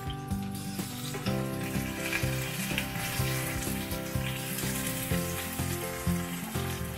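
Chicken breast slices and meatball-crusted cutlets sizzling as they shallow-fry in extra-virgin olive oil in a non-stick pan, getting stronger about a second in as they are turned with spatulas. Background music plays under it.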